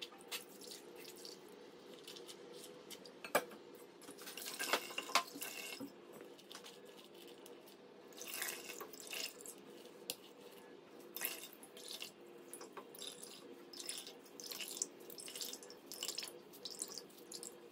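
Hands squeezing a wet mash of ground dry fruits in milk, liquid squelching and dripping back into the bowl in irregular bursts.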